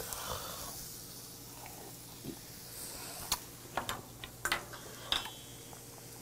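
Quiet eating sounds: a handful of sharp clicks and taps, mostly between about three and five seconds in, over a faint steady hum.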